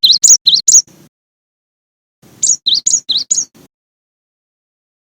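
Gelatik batu (cinereous tit) singing: short phrases of quick, loud two-note calls that alternate high and lower. One phrase ends near the start and another comes about two and a half seconds in.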